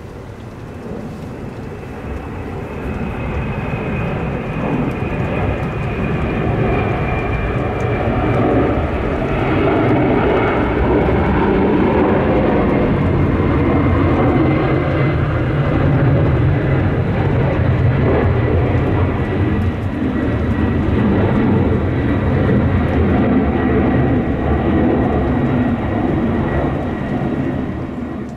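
Twin-engine jet airliner climbing out after takeoff. Its engine noise builds over the first several seconds to a steady, loud rumble, with a high whine that slowly falls in pitch as it passes.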